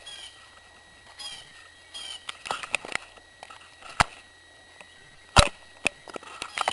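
A bird chirping in short, high calls during the first couple of seconds, then a series of sharp knocks, the loudest a little over five seconds in.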